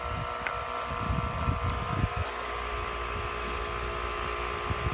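1 hp Grundfos water pump running steadily with a constant motor hum after the hose is shut off, building system pressure toward about 60 psi before it cuts out. Wind buffets the microphone with an uneven low rumble.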